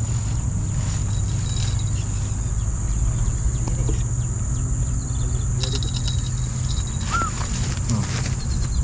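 Outdoor ambience: a steady low rumble under a thin, continuous high insect drone, with a few faint clicks and one short chirp about seven seconds in.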